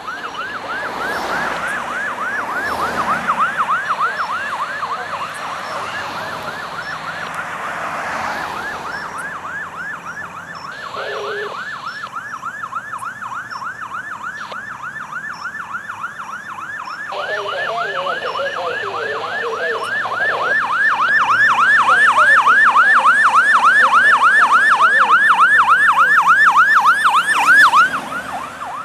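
A fire engine's Federal Signal PA300 electronic siren sounding a fast yelp, about three quick rising sweeps a second. It grows louder as the truck approaches, is loudest for the last several seconds, then drops off sharply as it passes. Cars pass in the first few seconds.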